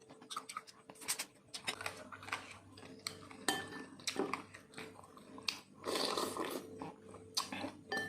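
Close-miked eating: a spoon clicking against a bowl over and over, with chewing, and a longer, louder stretch of noise about six seconds in.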